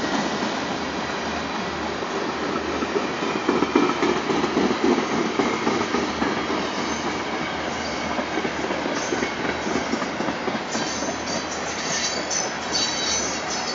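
Freight train of tank cars rolling past: a steady rumble of steel wheels on the rails. Sharper, higher-pitched wheel noise comes in the last few seconds.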